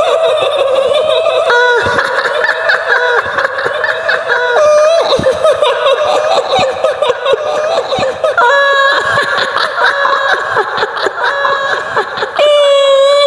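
High-pitched, wavering female cackling laughter, the laugh of a kuntilanak ghost, with sudden jumps in pitch every few seconds.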